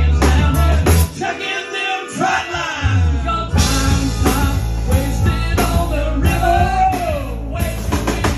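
Live rock band playing: guitars and a drum kit with a man singing. The heavy low end drops out about a second in and comes back about two seconds later.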